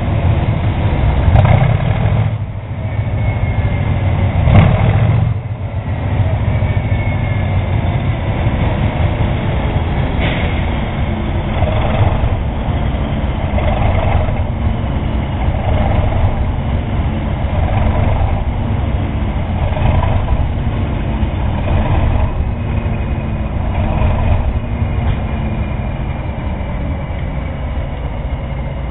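Class 20 and Class 37 diesel-electric locomotives working hard, their English Electric engines thrashing. The heavy, loud engine throb pulses slowly about every two seconds, with two louder surges in the first few seconds.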